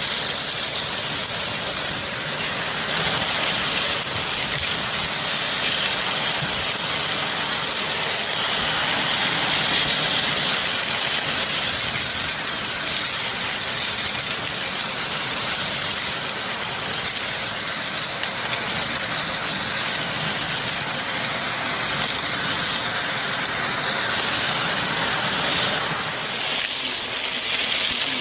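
Vacuum cleaner running with its bare open hose sucking air: a steady motor drone under a rushing airflow hiss, with a thin high whine. The hiss swells and eases now and then.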